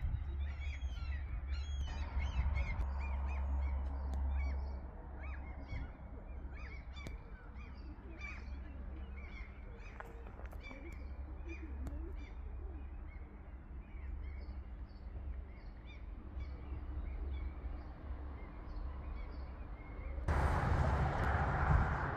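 Birds calling and chirping over a low steady wind rumble. About twenty seconds in, a sudden loud rush of wind noise.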